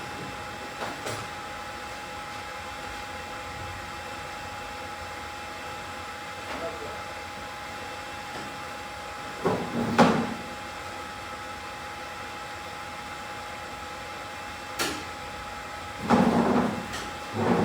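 Steady hiss of a BGA rework station's fans running through its heating profile, with a faint constant whine. Short knocks and clatters of handling break in about a second in, around ten seconds, and a few times near the end.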